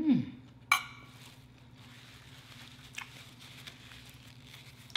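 A short falling hum from the eater at the start. About a second in there is a single ringing clink of cutlery against a dish, the loudest sound. Then a paper napkin crinkles softly as fingers are wiped in it.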